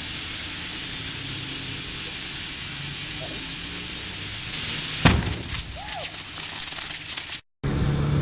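Truck inner tube filling with a steady hiss of air until it bursts with a single loud bang about five seconds in, followed by uneven noise as the rubber tears apart.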